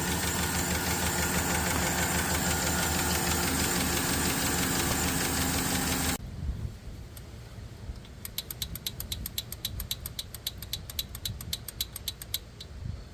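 GM V8 engine with Displacement on Demand (Active Fuel Management) running with a tapping noise, which the uploader puts down to a bad or collapsed lifter. About six seconds in the sound drops suddenly and becomes much quieter, and a little later a rapid, even ticking of about eight clicks a second runs for about four seconds.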